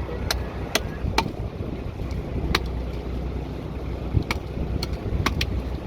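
Fishing boat's engine running steadily with a low rumble. Short sharp clicks and knocks come at irregular intervals over it.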